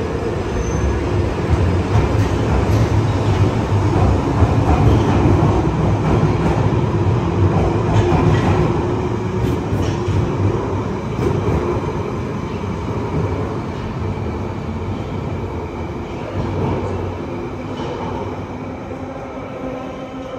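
London Underground Piccadilly line 1973 Stock tube train pulling out and running off into the tunnel. The rumble of motors and wheels builds over the first few seconds, with a few clicks from the rails, then slowly fades away.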